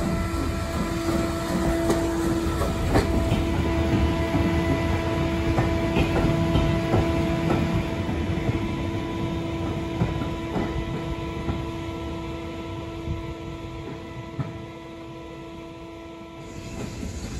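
Heritage passenger train rolling slowly out of a station, heard from the carriage window. The wheels rumble and clack now and then over rail joints, under a steady droning tone that stops near the end.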